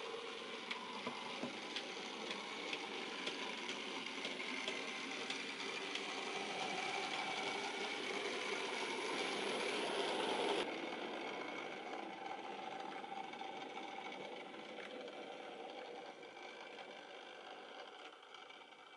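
Model railway train running on its track: a model ex-LYR 2-4-2T tank locomotive's electric motor whirring with a faint whine, and its goods wagons rattling and clicking over the rail. The sound changes abruptly about ten seconds in, then grows quieter toward the end as the train draws in to terminate.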